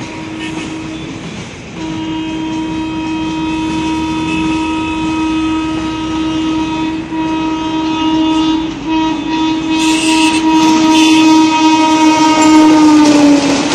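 Indian Railways WAP-4 electric locomotive horn: a short blast, then one long steady blast of about twelve seconds as the train approaches, growing louder, its pitch dropping slightly as the locomotive passes near the end. Train running noise underneath.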